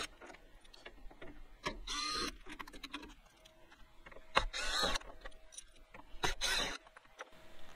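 Cordless drill/driver backing Phillips screws out of a Coleman Mach rooftop air conditioner's shroud, its motor running in about three short bursts.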